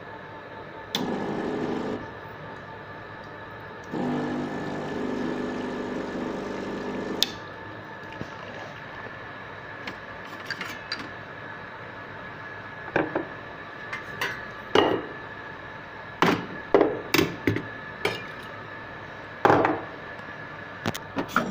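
MyEspressino espresso machine's pump running in two bursts, one of about a second and then one of about three seconds, the second ending in a sharp click. Then come a string of sharp metal knocks and clinks as the portafilter is taken out and set down on the drip tray.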